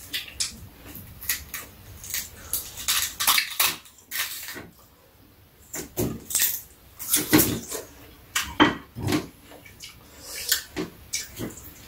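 A kitchen knife clinking and tapping against a stainless steel bowl as a peeled Korean pear is sliced over it, in irregular short clicks with a brief lull about halfway through.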